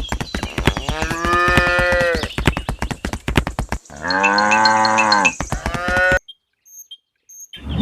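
Cattle mooing twice, one long call about a second in and a lower one about four seconds in, over fast, steady clanking of cowbells; everything cuts off suddenly about six seconds in.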